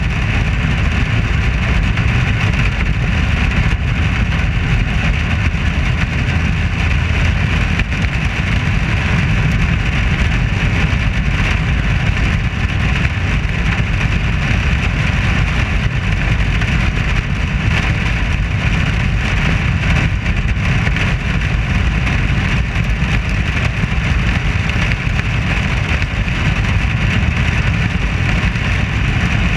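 Dirt modified race car's V8 engine running steadily on track, heard from the car's roof with air rushing over the microphone.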